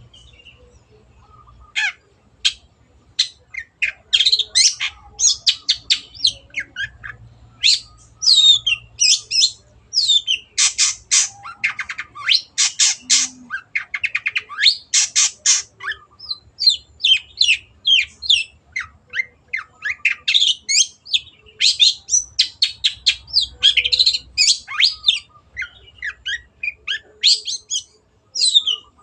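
Long-tailed shrike (cendet) singing a fast, varied run of short harsh and squawking notes, starting about two seconds in and carrying on without pause.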